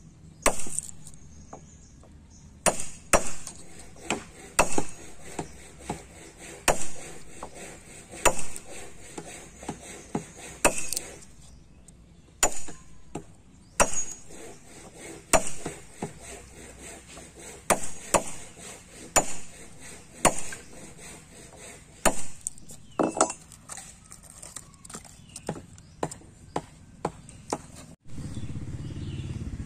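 Hammer blows on a steel wood chisel, one every second or two and sometimes in quick pairs, as the chisel bites into a hardwood beam and splits chips out of a joint notch.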